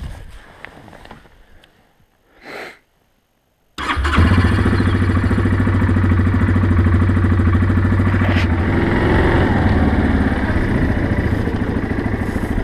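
Yamaha Grizzly 700 ATV's single-cylinder engine running steadily as the machine rides along a snowy trail. It comes in suddenly about four seconds in, after a few seconds of near silence.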